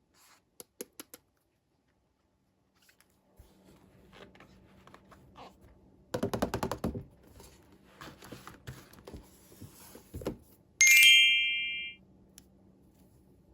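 Small plastic toy pieces and packaging being handled: scattered clicks and a quick rattling run of clicks, then a sudden bright chime-like ding that fades over about a second.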